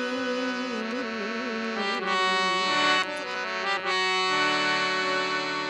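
Harmonium playing an instrumental passage: a wavering melodic line for about two seconds, then sustained held chords that shift twice.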